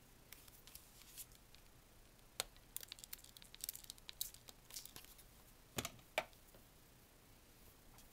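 Faint rustling and crinkling of a paper towel being handled, with scattered light clicks and taps; two sharper taps stand out about six seconds in.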